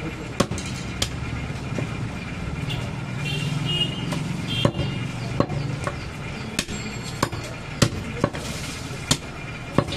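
Butcher's cleaver chopping goat meat and bone on a wooden log chopping block: sharp single blows, two near the start, then a steady run of about eight chops every half second to a second from midway on. A low steady rumble lies underneath, swelling briefly just before the chops resume.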